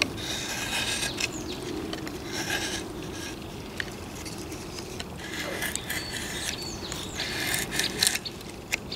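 A knife blade shaving curls off a stick of resin-soaked fatwood, in several separate scraping strokes of about half a second to a second each. The shavings are being made as fire-starting tinder.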